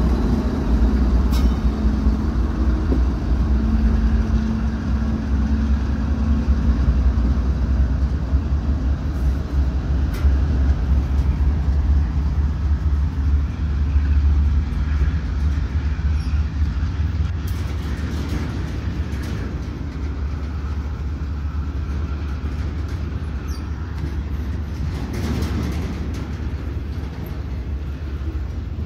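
Norfolk Southern diesel-electric locomotives passing close with a deep, steady engine rumble. After that the double-stack intermodal well cars roll by more quietly, with the wheels giving occasional clacks.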